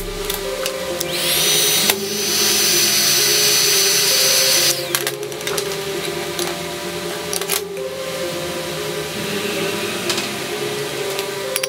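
A small electric power tool's motor spins up about a second in with a rising whine, runs steadily for about four seconds as a high whine over a loud hiss, then cuts off suddenly. A few sharp clicks of metal parts on the workbench follow.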